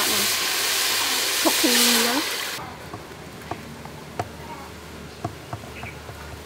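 Curry paste sizzling as it fries in oil in a pot, with a buzzing hum coming and going over it. About two and a half seconds in the sizzle stops abruptly, giving way to a quieter scene of curry simmering, with soft scattered pops of bursting bubbles.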